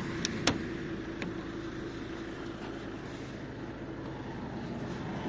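Diesel minibus engine idling steadily. Three sharp clicks in the first second or so as the sliding side door's latch and handle are tried; the lock is frozen and does not release.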